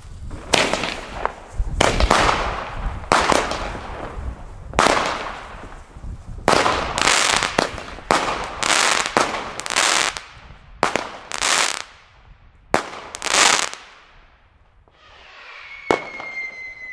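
Category 2 consumer fireworks firing a rapid series of more than a dozen shots, each a sharp crack followed by a short crackling hiss, stopping after about thirteen seconds. Near the end there is a high, steady whistling tone.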